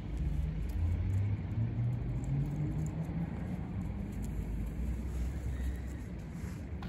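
Low rumble of a motor vehicle's engine running, its pitch rising over the first three seconds and then holding steadier.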